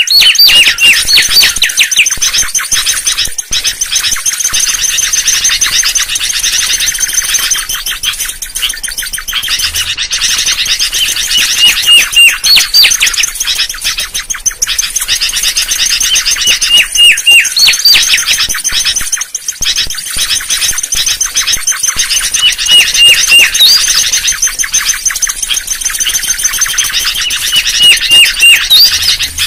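Mangrove whistler (kancilan bakau) singing: phrases of quick, repeated whistled notes every few seconds, some ending in sharply rising notes, over a continuous fast, high-pitched chatter.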